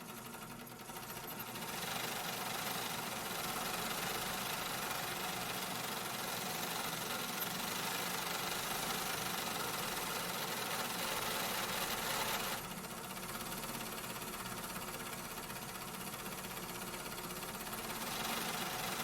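Factory machinery running: a dense, continuous mechanical din with steady hums. It grows louder about two seconds in and eases a little about two-thirds of the way through.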